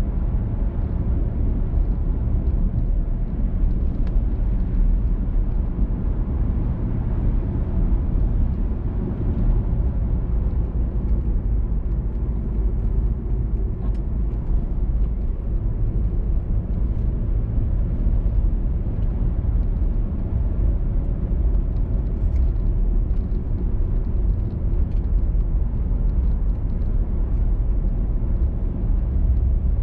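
Car driving along a road: a steady low rumble of tyres and engine, with no change in pace.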